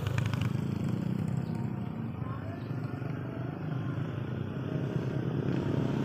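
Steady low engine rumble from a motor vehicle running.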